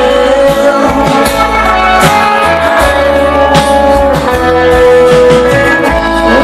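Live rock band playing a slow song, with electric guitar and drum kit, loud and heard from the audience.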